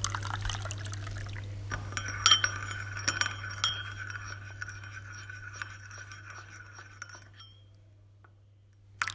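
Sound effect of tea being served: a cup and spoon clinking with liquid pouring, over a steady low hum, fading away after about seven seconds.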